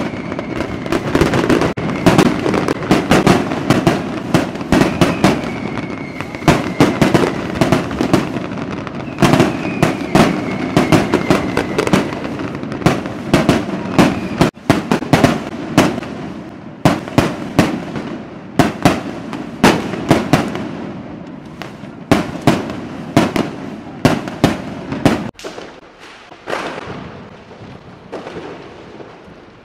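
Fireworks going off in rapid succession: dense bangs and crackling, with a few whistles that sag slightly in pitch, and the bangs thinning out near the end.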